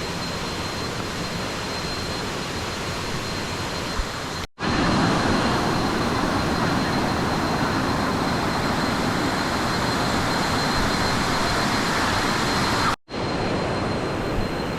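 Steady rushing noise, breaking off twice for a moment and a little louder in the middle stretch.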